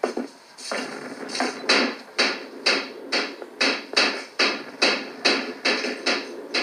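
A steady series of sharp, even knocks, a little over two a second, starting about a second in.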